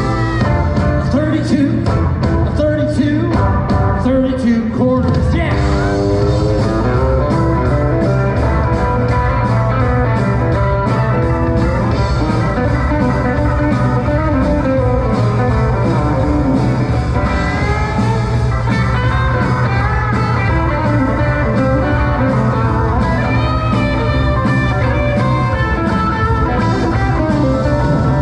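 Live band playing a rock and roll song, with electric guitar and singing over a steady bass and drums.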